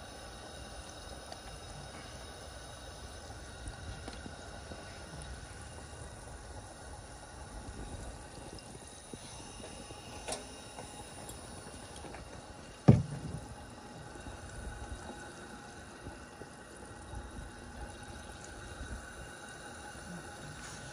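Cooking oil dripping and trickling from a deep-fried turkey in a perforated steel fryer basket into an aluminium foil pan. A small tap comes about halfway through, and a sharp knock a little later is the loudest sound.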